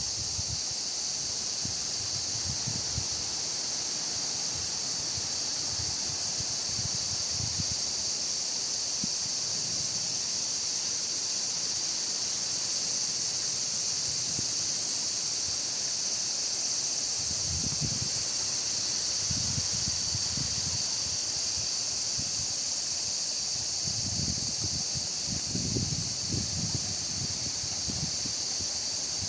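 A chorus of cicadas shrilling in a steady, unbroken high-pitched drone, with wind buffeting the microphone in low rumbling gusts that grow stronger in the second half.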